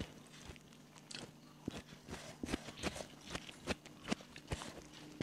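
Eating by hand: fingers picking at rice and fried fish on banana leaves, with irregular small crackles, crunches and chewing. A faint steady low hum runs underneath.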